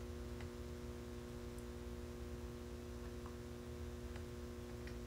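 Steady low electrical hum with a few faint ticks.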